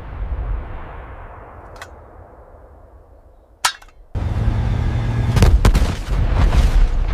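Combat sounds of explosions and gunfire: a deep boom dies away, a single sharp shot cracks out, then a fresh heavy rumble starts suddenly, with more sharp cracks through it.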